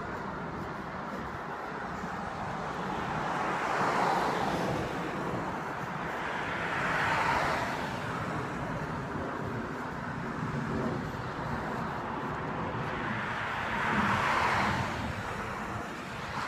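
Road traffic: cars passing one after another, each a swell of tyre and engine noise that rises and fades over a couple of seconds, three of them standing out above a steady traffic hum.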